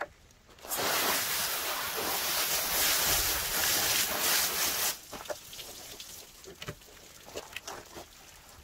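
Pistol-grip hose nozzle spraying water to rinse a salmon fillet on a plywood table, a steady hiss that starts under a second in and cuts off at about five seconds.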